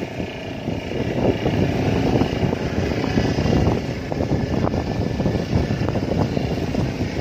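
Wind buffeting the microphone, a constant low rumble, over waves washing against shore rocks.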